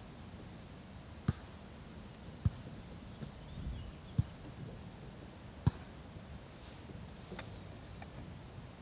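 Four dull, short knocks, spaced roughly a second and a half apart, over a faint steady open-air background hiss.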